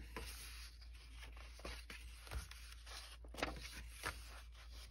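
Quiet handling of a paper pad: faint rustling with a few soft taps and clicks.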